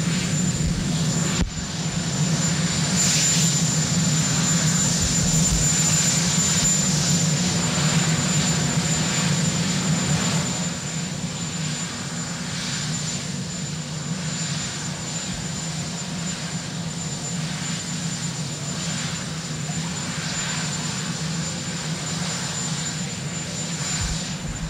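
Engines of a Marine One Sikorsky VH-3D Sea King helicopter running while it stands on the ground: a steady low drone with a thin high turbine whine. It becomes a little quieter about ten seconds in.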